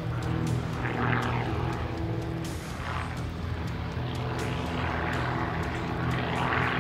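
Single-engine propeller aerobatic plane, a GameBird GB1, flying aerobatics, its engine and propeller swelling and easing several times.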